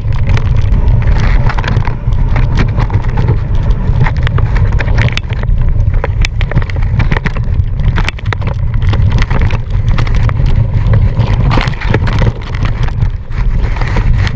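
Mountain bike rattling and clattering over rough trail, with many sharp knocks, under heavy wind buffeting on a ride-mounted camera microphone.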